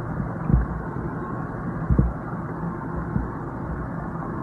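Steady low rumble of a boat's engine at idle, with three short low thumps through it.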